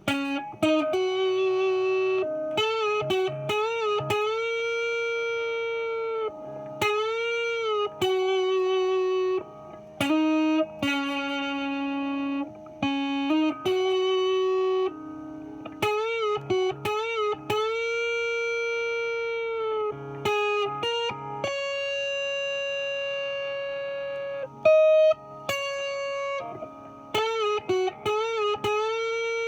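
Epiphone 1959 Les Paul Standard electric guitar played through an amp on the middle pickup setting, both pickups on: a single-note lead line with string bends and held notes with vibrato.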